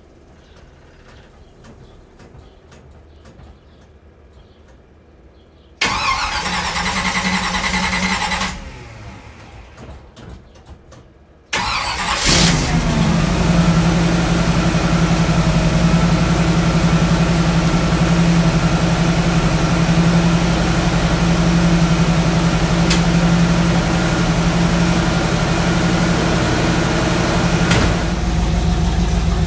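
1955 Chevy pickup's engine cold-starting: a first attempt about six seconds in sounds for a couple of seconds and dies away, then about five seconds later the engine fires and settles into a steady idle.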